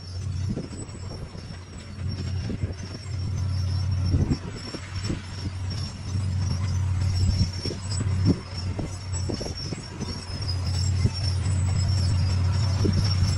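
D41 bulldozer's diesel engine running with a steady low hum, with irregular knocks and clatter over it. The level rises in the last few seconds.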